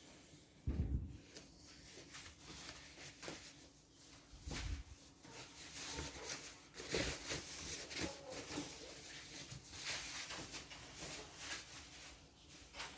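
Rustling, scraping and handling noises, such as packaging and a speaker being unpacked, with a couple of low thumps about a second in and near the middle.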